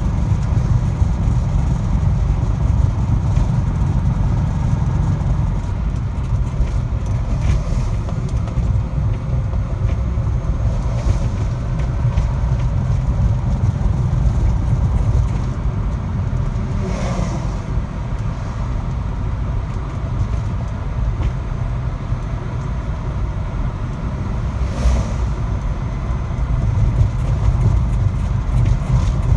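Car driving, heard from inside: a steady low rumble of engine and road noise, with a faint steady whine above it.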